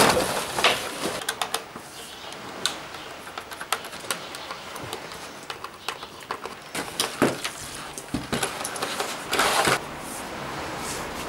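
Cardboard box and expanded-polystyrene packaging being handled as a toy RC boat is lifted out: scattered clicks, knocks and rustles, with a short scraping rush near the end.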